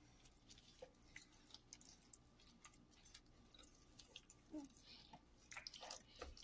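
Near silence with faint, scattered wet squishing and small clicks: hands massaging jerk seasoning into raw chicken pieces.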